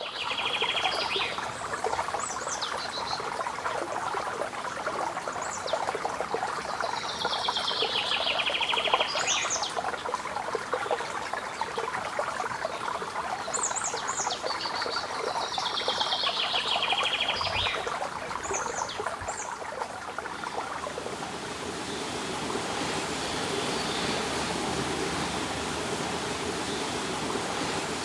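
Running water trickling and splashing steadily, with a songbird singing the same descending trilled song three times, about seven seconds apart, plus a few short high calls. After about twenty seconds the birds fall quiet and the water settles into a smoother, even rush.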